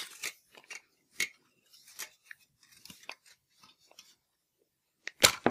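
Scattered small clicks and taps of hands handling a hollow chocolate bunny, then one sharp crack near the end as the chocolate is broken open to reach the egg inside.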